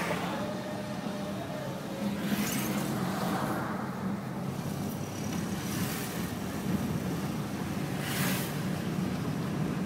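Road noise of a car driving along a city street, heard from inside the cabin: a steady low engine and tyre rumble, with brief rushing hisses about two and a half, six and eight seconds in.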